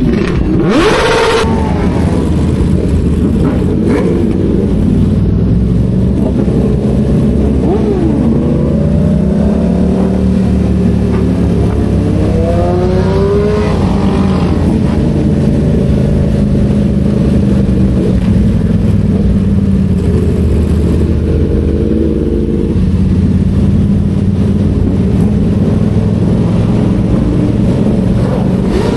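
Car engine running steadily with the revs rising and falling, several rising sweeps in pitch about a third of the way through.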